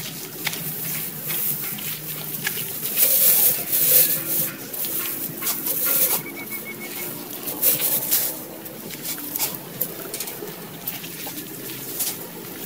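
Dry grass and plant stems rustling and crackling irregularly as they are handled and pulled, with birds calling in the background.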